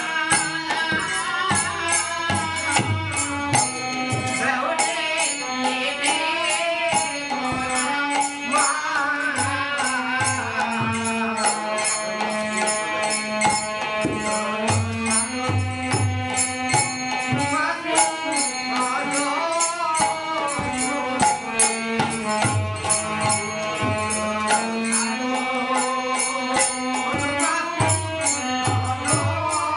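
Bengali Hari nam kirtan music: a harmonium holds a sustained, wavering melody, small brass hand cymbals (kartal) clash in a steady fast rhythm, and a drum beats low underneath.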